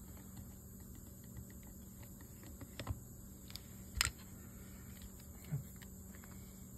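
Faint small clicks and ticks of a screwdriver turning a small screw into a spinning reel's crosswind arm and of the metal reel being handled, with one sharper click about four seconds in.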